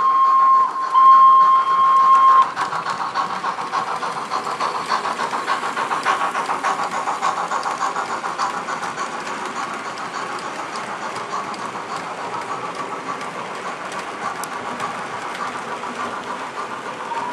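Loksound sound decoder in an HO-scale model 231G steam locomotive, played through the model's small loudspeaker: the whistle sounds twice, then a fast, steady rhythm of exhaust chuffs. The whistle starts again right at the end.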